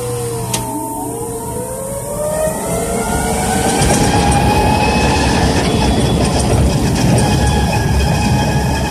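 Electric reach truck's drive motor whining, several tones gliding up in pitch over the first few seconds as it speeds up. A rumble of travel then builds and holds under a steady whine.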